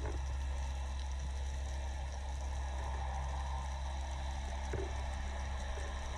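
Muffled underwater ambience heard through a waterproof camera housing: a steady low rumble with a faint hiss above it, and one brief soft knock about five seconds in.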